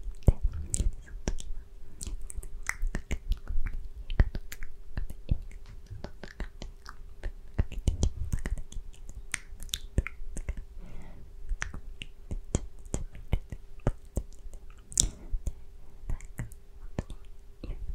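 Close-miked mouth sounds from inaudible ASMR whispering: many irregular wet clicks and lip smacks in quick succession.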